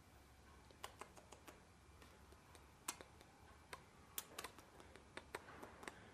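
Faint, irregular light clicks and taps, about a dozen, scattered over near-silent room tone.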